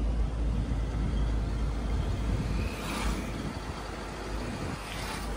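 Truck's engine running and road noise heard from the cab while it drives slowly: a steady deep rumble, with a brief rise of hiss about three seconds in and again near the end.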